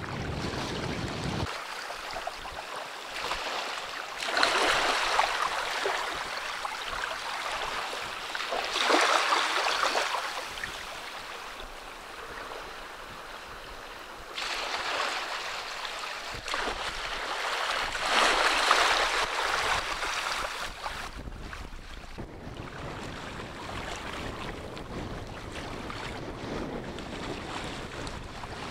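Small Baltic Sea waves washing in over shallow sand, a hissing wash that swells four times and sinks back between. Wind rumbles on the microphone at the start and through the last third.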